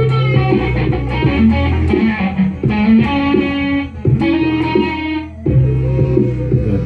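Stratocaster-style electric guitar playing a run of single notes, with a steady low bass note underneath.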